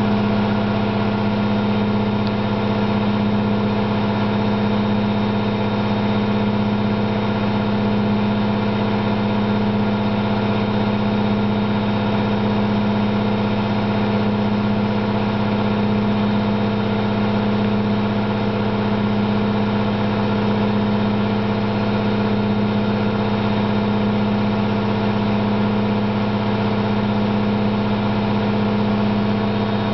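Candy GO4 127 DF washing machine spinning at a steady speed with a loud hum from its drum bearings. The bearings are worn, though the owner says they aren't really that bad, just loud.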